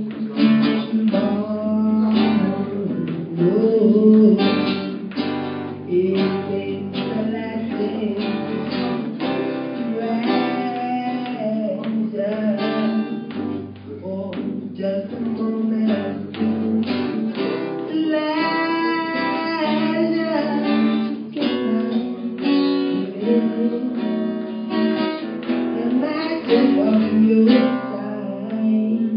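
A woman sings a slow song into a microphone, accompanied by live acoustic guitar.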